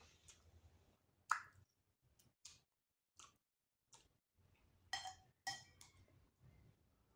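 Metal spoon against a ceramic plate while eating rice and curry: a string of faint separate clicks and taps. The sharpest comes a little over a second in, and two near the end ring briefly like a clink.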